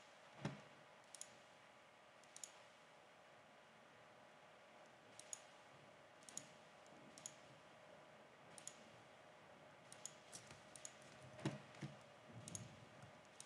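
Computer mouse clicking now and then, about fifteen sharp single clicks, coming closer together near the end, as points of a line sketch are placed. Otherwise near silence with a faint steady room hum.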